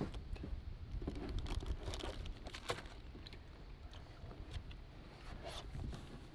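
Low wind rumble on the microphone with scattered light clicks and rustles of handling.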